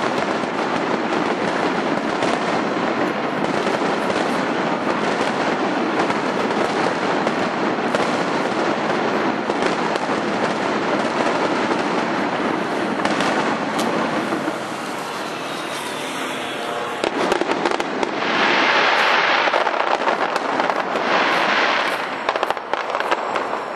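Fireworks crackling overhead: a dense, continuous crackle of many small pops, easing a little about fourteen seconds in, then two louder bursts near the end.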